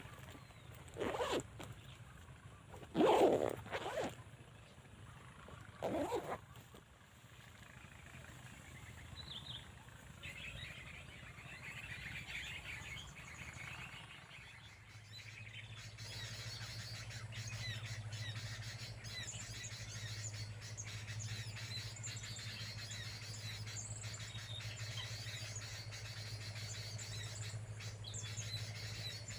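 Small birds chirping and calling, with three short, louder, lower-pitched sounds in the first six seconds. A steady low hum joins the chirping about halfway through.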